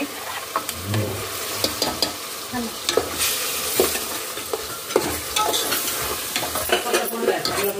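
A metal spoon scrapes wet ground-coconut masala paste out of a steel pot into a pot of sizzling onion and tomato masala in oil, then stirs it. The spoon clicks and scrapes against the steel over a steady sizzle.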